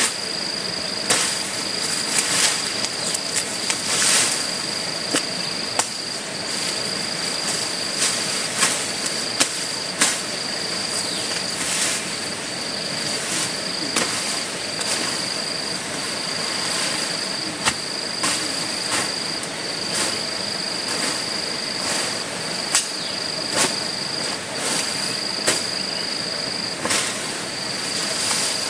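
An insect trilling on one high, steady pitch in long pulses of a second or two with short breaks, over irregular sharp knocks.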